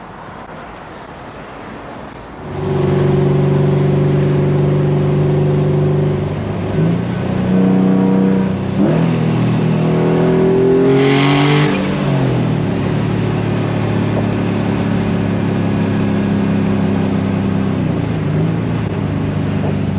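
Turbocharged Nissan S15 Silvia's engine under hard acceleration: the engine note jumps up sharply about two seconds in and changes pitch several times through the middle. A short hiss comes about eleven seconds in, and then the engine runs steadier. Right afterwards the air-fuel gauge shows a lean 17, which the owner blames on a faulty gauge or O2 sensor.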